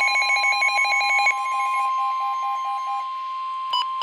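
Weather-radio emergency alert attention signal: a steady high alarm tone, the warning tone of a NOAA Weather Radio alert, with rapid beeping at several pitches over it, about ten a second, that fades away after a second or two. Near the end a slower series of beeps starts up.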